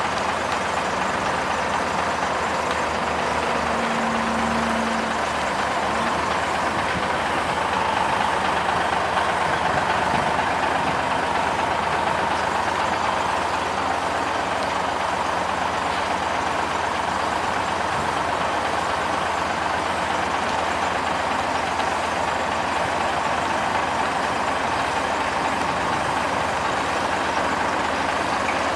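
Heavy diesel road-paving machinery, an asphalt paver and dump truck, running steadily with no letup. A brief low tone comes in about three seconds in.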